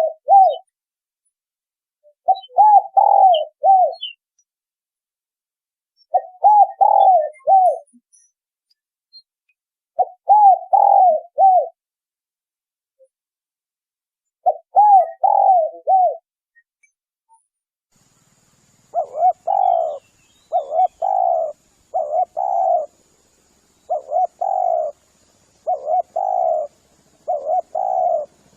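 Spotted dove (tekukur) cooing, a recorded lure call. Phrases of several coos come about every four seconds; then, from about two-thirds of the way in, a faster series of single coos about once a second, with a faint high steady hiss behind them.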